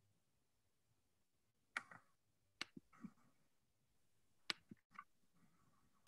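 Near silence with a handful of short, sharp clicks over the middle few seconds.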